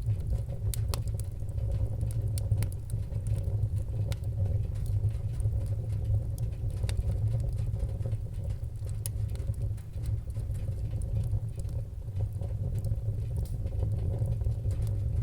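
Fireplace fire crackling: sharp, irregular pops and snaps over a steady low rumble of burning flames.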